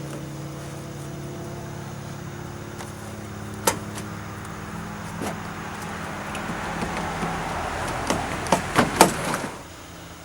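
A headlight housing being worked into a truck's front end: one sharp knock about three and a half seconds in, then a quick cluster of knocks and clicks near the end as it goes into place. A steady low vehicle hum runs underneath and fades.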